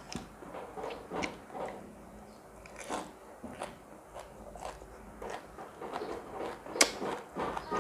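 A person biting and chewing crunchy food close to the microphone while eating spicy seafood papaya salad with young sunflower sprouts: irregular crunches, one sharp loud crunch near the end.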